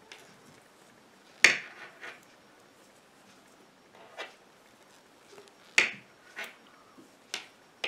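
Metal knitting needles clicking together as stitches are worked: about six sharp, separate clicks at irregular intervals, the loudest about one and a half seconds in.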